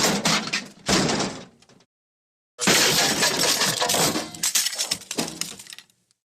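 The 'MGM Elephant Smash' crash sound effect: a smash with breaking glass, a second crash about a second in that dies away, then after a short gap a longer crash with clattering debris that trails off.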